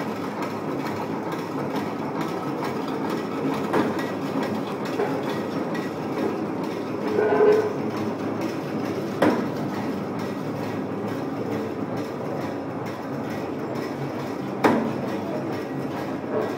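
Zig-zag spring making and end-cutting machine running: a steady, dense mechanical clatter as it works the wire, with three sharp knocks spaced about five and a half seconds apart and a short pitched whine about seven seconds in.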